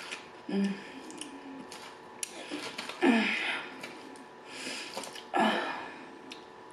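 Close-up eating sounds of a person chewing a mouthful of Cobb salad, with three short noisy breaths or nasal sounds spread through it and a couple of light sharp clicks.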